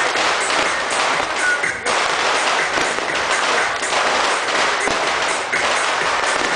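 Fireworks going off in a dense, continuous crackle: a rapid stream of small pops and bangs with no pause.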